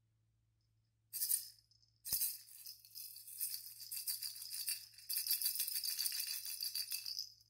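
A plastic toy baby rattle being shaken. There is one short shake about a second in, then fast, continuous rattling for about five seconds that stops just before the end.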